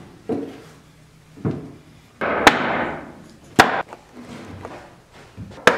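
A rubber mallet knocking the rails and legs of a wooden bench frame together during assembly: three sharp knocks and several duller thuds, with handling noise from the timber in between.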